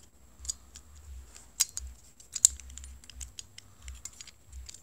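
Small plastic clicks and ticks from the parts of a Chevrolet flip-key fob being fitted together by hand. Two sharper clicks come about one and a half and two and a half seconds in.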